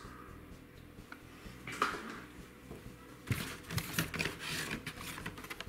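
Carded blister-pack toy cars handled against a cardboard shipping case: a light scrape about two seconds in, then a couple of seconds of quick plastic-and-cardboard clicks and rustles as cards are shuffled and picked out.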